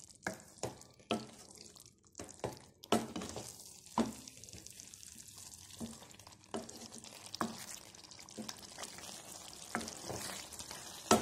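A metal ladle stirring a thick chicken curry in a pot, giving irregular knocks and scrapes against the pot, the sharpest near the end. Underneath is a soft sizzle from the masala frying in oil, cooked down until the oil has separated and risen to the top.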